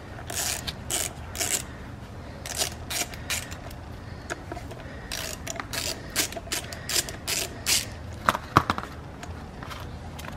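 Hand socket ratchet clicking stroke after stroke as it backs out the bolts of a thermostat housing. Near the end come a few louder, sharper metal clicks.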